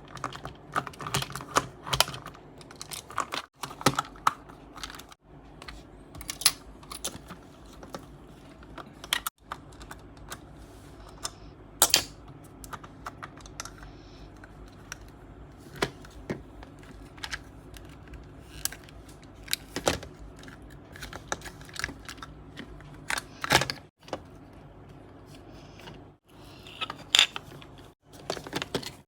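Irregular clicks, taps and light rustles of a plastic dinosaur toy and its packaging being handled, with a few sharper clicks and a few brief gaps.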